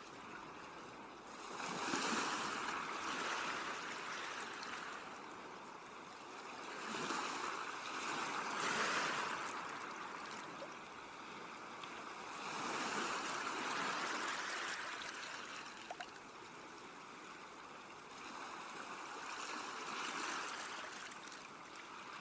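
Sea waves washing onto a shore, swelling and falling back in slow surges about every five to six seconds.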